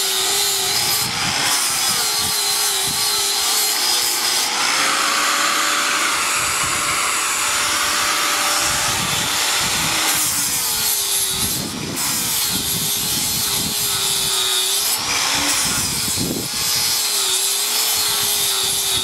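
An electric power tool runs continuously under load, working metal. Its motor tone wavers and dips in pitch now and then as the load changes.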